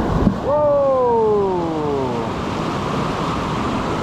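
Whitewater rapids rushing steadily around the kayak. About half a second in, a single long tone with several harmonics slides slowly downward in pitch for nearly two seconds.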